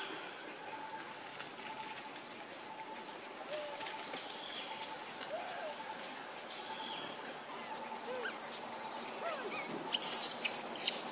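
Forest ambience: a steady, high-pitched drone of insects, with scattered short calls through it and a louder burst of shrill high calls about ten seconds in.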